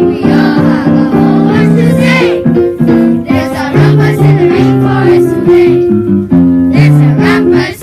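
Upbeat song with keyboard accompaniment and singing voices.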